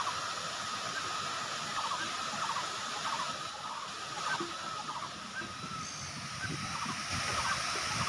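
Waterfall cascading down tiered limestone terraces: a steady rush of water. Faint short calls repeat irregularly over it, and a low rumble grows near the end.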